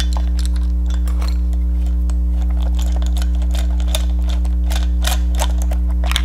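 Socket ratchet clicking in quick irregular runs as a nut is undone on a 3D-printed gear shaft, with small clicks of plastic and metal parts being handled. A loud steady electrical hum runs underneath and is the loudest sound.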